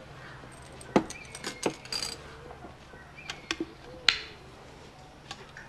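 Hands handling a small can and a clear cup: a scatter of light clicks and taps, with a brief ringing clink about two seconds in.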